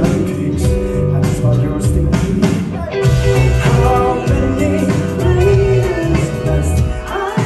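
A live band playing a song, with electric guitars, bass, keyboard and a steady drum beat, heard from the audience in the concert hall.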